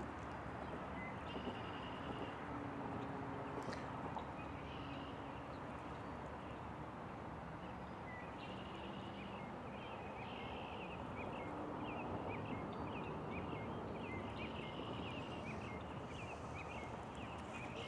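Birds chirping in short, high calls throughout, over a steady, faint outdoor background hiss.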